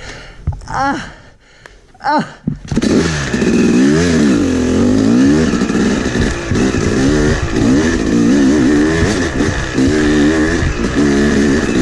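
Yamaha YZ250X two-stroke dirt bike engine running low with two short revs, then pulling away about three seconds in. Its note then keeps rising and falling as the throttle is worked.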